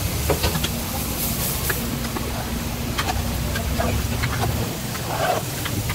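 A steady low rumble under scattered light metallic clinks and scrapes of a steel ladle against steel cooking pots.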